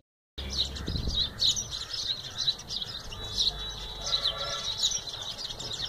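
House sparrows chirping continuously: many short, quick, overlapping high chirps.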